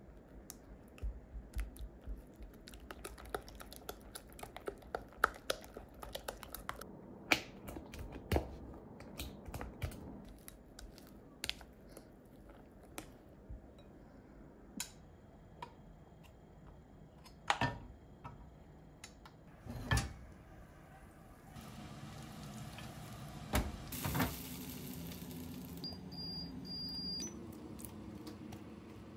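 Black spoon stirring eggs into a batter in a glass mixing bowl: quick clicks and taps of the spoon against the glass, dense at first and sparser after about twelve seconds. About two-thirds of the way through, a steady hiss comes in under a few louder knocks.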